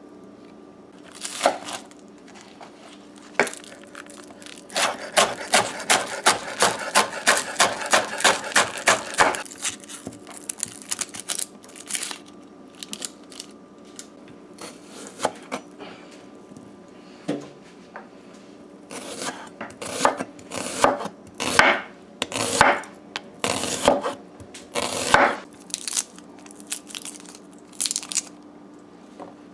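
Kitchen knife chopping scallions and onion on a wooden cutting board. A quick, even run of chops about four a second lasts some four seconds, then come scattered single cuts, and later a run of heavier, irregular strokes.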